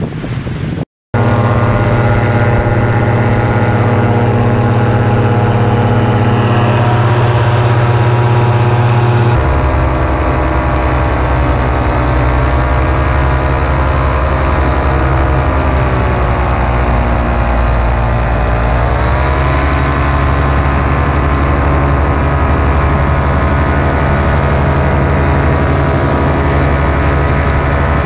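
Paramotor engine and propeller running steadily, loud and close. The sound starts after a brief dropout about a second in, and around the middle the pitch sags for a few seconds, then climbs back up.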